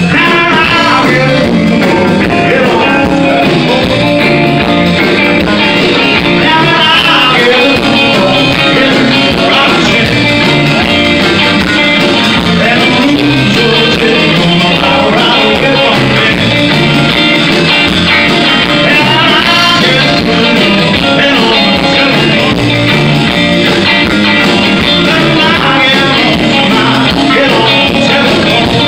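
Live band playing loud electric rock: electric guitars and bass guitar playing without a break.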